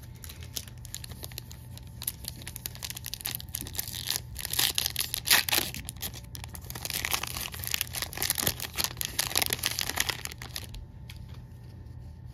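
Foil wrapper of a baseball card pack being torn open and crinkled. The crackling is loudest in the middle and stops about a second before the end.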